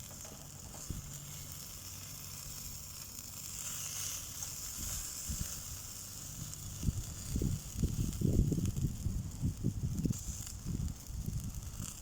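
Bone-in chicken sizzling over bamboo charcoal, a faint steady hiss that swells briefly about four seconds in. From about seven seconds in, irregular low buffeting of wind on the microphone becomes the loudest sound.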